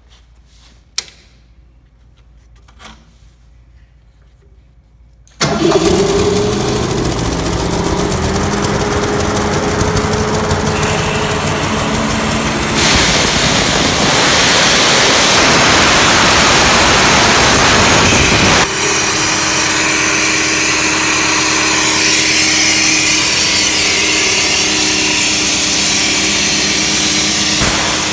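Grimmer Schmidt 125 CFM skid air compressor's Ford gasoline engine: after a few faint clicks it starts suddenly about five seconds in and runs steadily. About halfway through, a louder steady rush of noise joins it for about six seconds and then stops, while the engine keeps running.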